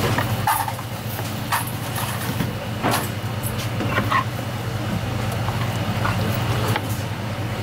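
A steady low mechanical hum, with scattered light knocks and clicks as a knife and a fish fillet are handled on a plastic cutting board.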